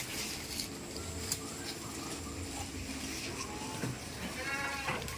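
A short animal call about four and a half seconds in, over faint background noise.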